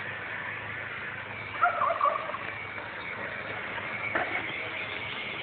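Chicken giving a short wavering call about a second and a half in, with a single sharp knock near the end.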